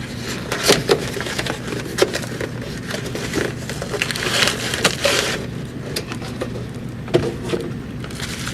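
Packaging being handled as a box is unpacked: rustling and crinkling of packing material and bubble wrap, with scattered clicks and knocks.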